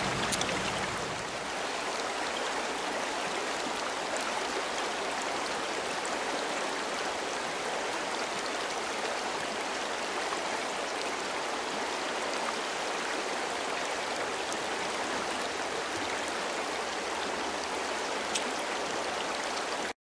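Steady rush of a shallow mountain river flowing over its stony bed.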